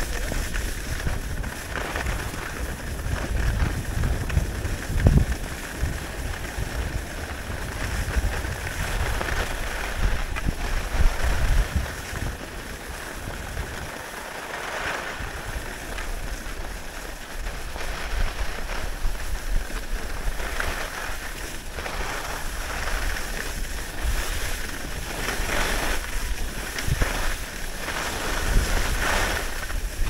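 Wind buffeting an action camera's microphone during a downhill ski run, with low rumbling gusts now and then, over the steady hiss and scrape of skis sliding on groomed snow that swells and fades again and again.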